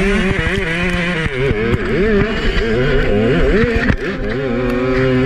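Onboard sound of a 200cc four-stroke kart engine, its revs swinging up and down quickly as the throttle is worked, with a few sharp knocks, then holding a steadier pitch about four seconds in.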